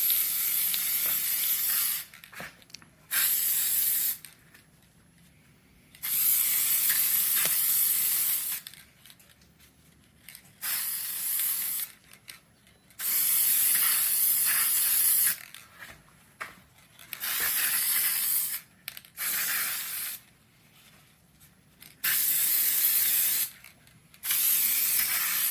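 Aerosol can of Maxima FAB-1 foam air filter oil spraying in short bursts of hiss, about nine of them, each one to two and a half seconds long with brief pauses between. It is coating a new foam air filter with oil.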